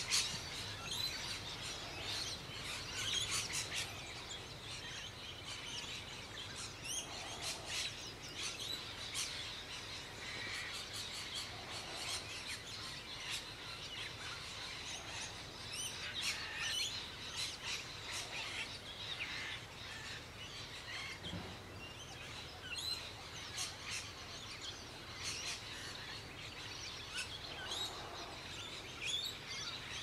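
A chorus of wild birds: many short, high chirps and twitters from several birds, over a steady outdoor hiss.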